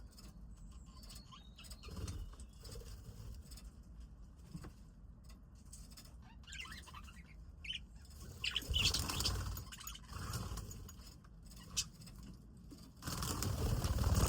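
Budgies chirping now and then, with bursts of wing flutter and rustle, the loudest beginning near the end.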